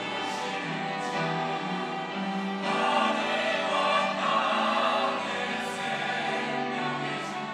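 Church choir singing an anthem in harmony, swelling louder about two and a half seconds in and easing back near the end.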